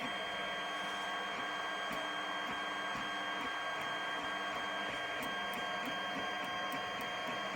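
FDM 3D printer printing, its stepper motors whining in low tones that step from one pitch to another every fraction of a second as the print head changes moves, over a steady electrical hum with faint ticks.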